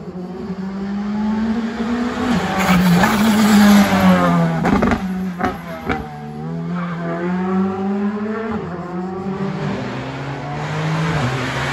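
Rally car engine revving hard as the car approaches on a special stage. Its pitch climbs and drops back several times with the gear changes, and there are a few sharp cracks about halfway.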